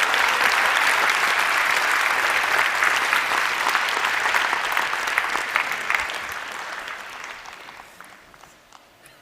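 Audience applauding, dense clapping that fades away over the last few seconds.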